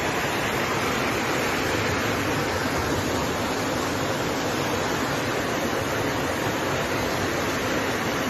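Steady roar of rushing floodwater, an even noise with no let-up.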